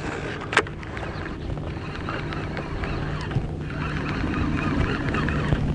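Fishing reel being cranked during a fast lure retrieve, with water lapping at the boat and a steady low hum underneath. A sharp click comes about half a second in.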